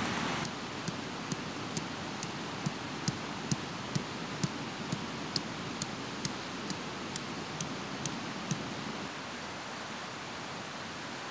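Steady rush of a fast-flowing river. Over it runs a series of evenly spaced light ticks, about two a second, for about eight seconds.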